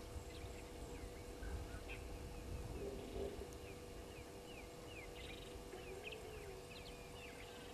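Wild birds calling: a scatter of short, high, falling chirps, thickest in the second half, with a few lower calls about three and six seconds in, over a low background rumble.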